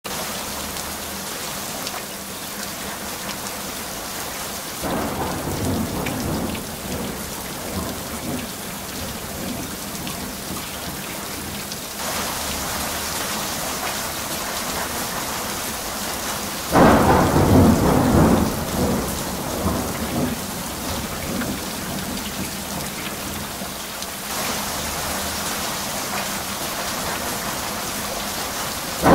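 Heavy rain falling in a steady hiss, with thunder: a rumble about five seconds in, a sudden loud clap rolling on for a couple of seconds about seventeen seconds in, and another clap at the very end.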